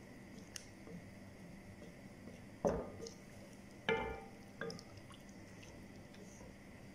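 Wooden spatula stirring rice and chicken through broth in a large pot, with wet liquid sloshing and two knocks of the spatula against the pot a little before and after halfway, the second ringing briefly.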